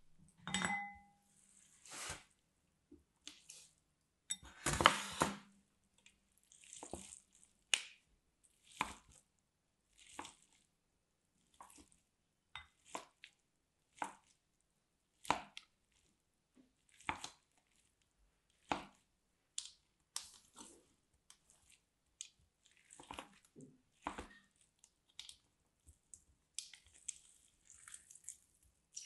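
Large hydrogel water beads being pressed through a wire-grid dicer and the diced gel squashed by hand: a string of short, wet, crunchy squelches, about one every second or so, the loudest about five seconds in.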